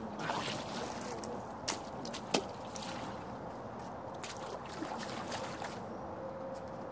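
Small creek trickling steadily under a wooden platform, with a few sharp clicks and knocks, the loudest about two seconds in.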